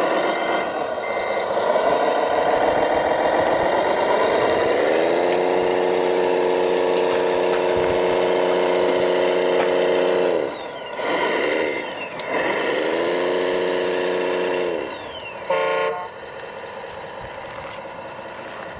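Motor of a radio-controlled model truck whining: the pitch rises, holds steady for several seconds, then falls away, and this happens twice.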